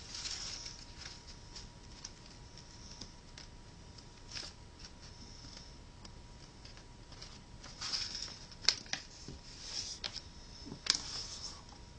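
Origami paper being folded in half and creased flat by hand on a tabletop: soft rustling and sliding of the sheet, with a few sharper crinkles, the loudest about nine and eleven seconds in.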